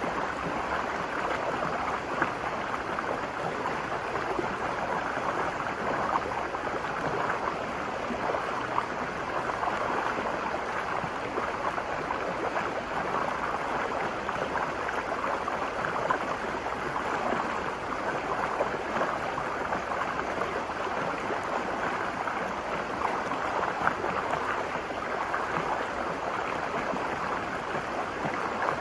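Virgin River flowing over rocks: a steady rushing and gurgling of fast shallow water with small splashes.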